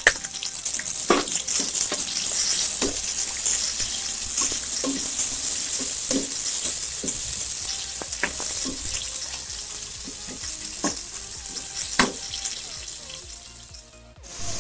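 Sliced onions sizzling as they fry in hot oil and ghee with whole spices in a pressure cooker, with a few sharp clicks through it. The sizzle dies down near the end.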